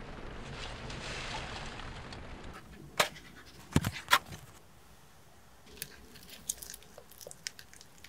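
Steady rushing of water that cuts off about two and a half seconds in. Then a sharp click and two heavier knocks about a second later, and from about six seconds in, scattered small clicks and crackles of fried fish being handled and dipped in a paper-lined food basket.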